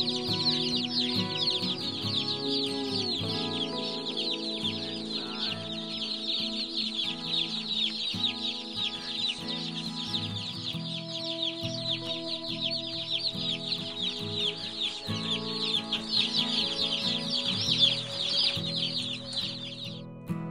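A large flock of Cornish Cross broiler chicks peeping continuously, a dense chorus of high, short, falling cheeps over background music. The peeping cuts off suddenly near the end while the music goes on.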